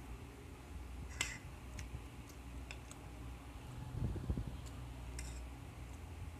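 Metal fork and spoon clinking and scraping against a plate of noodles, with scattered light clicks and a sharper clink about a second in. Around four seconds in, muffled low mouth noises as a forkful of noodles is eaten, over a steady low hum.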